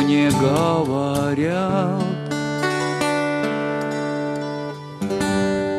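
Acoustic guitar strummed under a man's singing voice, which holds a wavering note through the first two seconds. The guitar chords then ring on alone, with a fresh strum about five seconds in.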